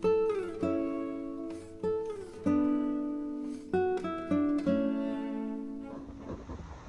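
Background music: acoustic guitar playing plucked notes, some sliding in pitch, which stops about six seconds in and gives way to a rushing noise with scattered clicks.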